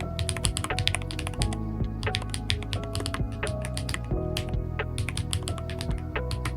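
Typing on a keyboard fitted with GATERON Jade Delta Dark magnetic switches: a quick, uneven stream of keystroke clacks, over background music.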